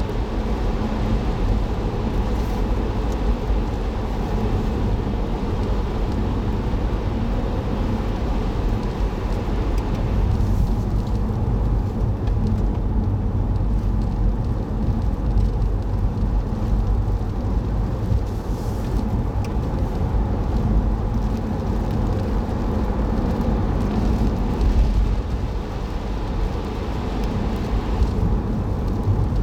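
Car driving at a steady pace, recorded from inside the cabin by a dashcam: continuous engine and road rumble. The hiss on top eases off about ten seconds in.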